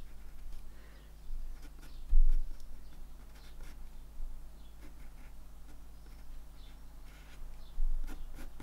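A 2B graphite pencil sketching on watercolour paper in short scratchy strokes, drawing rounded shapes. Two low thumps, about two seconds in and again near the end, stand out over a steady low hum.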